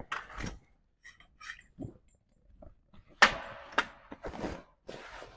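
Telescopic annex support pole being extended and handled against the tent canvas: scattered clicks and knocks, with a sharp knock about three seconds in and another just after, and brief fabric rustling.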